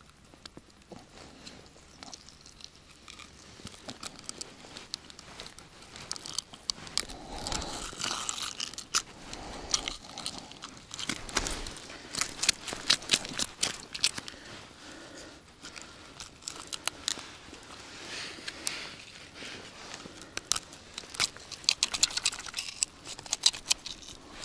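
Close handling noise: irregular rustling, crinkling and sharp clicks, busier from about six seconds in, from working a deeply swallowed live bait and hook out of a pike's mouth.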